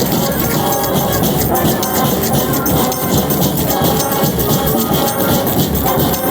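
Street brass band playing live: several horns over drums and percussion.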